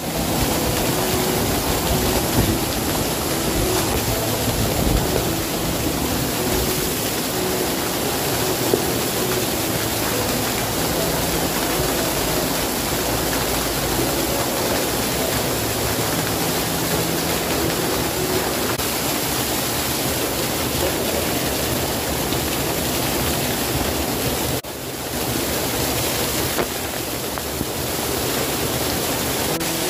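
Water rushing and splashing, from a shallow stream and a small waterfall pouring close by: a steady, loud, even rush with a brief drop about three-quarters of the way through.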